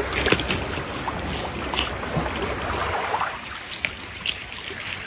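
Boosted outdoor recording hiss with small crackles and a low steady hum, and a faint whispered voice about three seconds in. The investigators take the whisper for an EVP saying 'Do you want to go swimming?'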